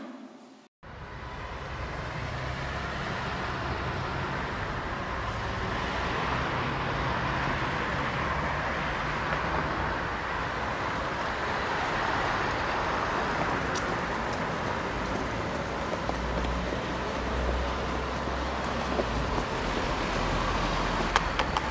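Steady road traffic noise: a continuous wash of passing cars with a low rumble underneath, holding at an even level.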